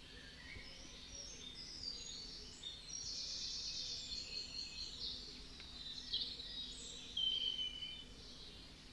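Small birds chirping and twittering, many short high calls overlapping throughout, with one longer held whistle about seven seconds in.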